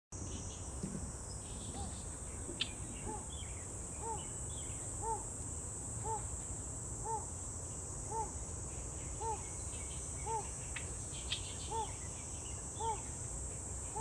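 Yellow bittern (Ixobrychus sinensis) calling: a short, low note repeated evenly about once a second, starting about two seconds in. A constant high insect hiss runs underneath.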